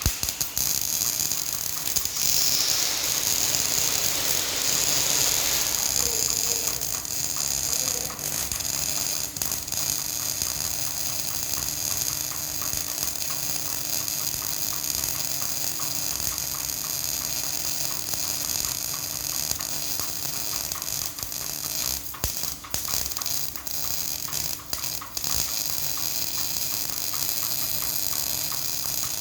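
Electric arc welding: the arc crackles steadily and densely, with a brighter hiss over the first six seconds or so.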